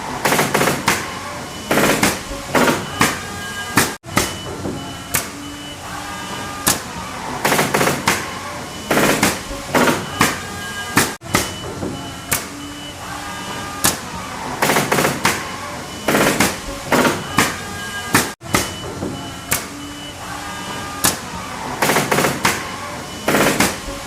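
Pneumatic nail gun firing nails into wood: sharp shots in quick clusters of several, with short pauses between. The same sequence repeats about every seven seconds.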